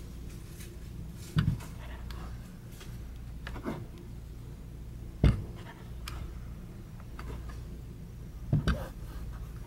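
Knocks and light clicks from a metal Carl Zeiss Standard microscope part being handled and turned by hand, over a steady low hum. The loudest knock comes about five seconds in, and a quick double knock comes near the end.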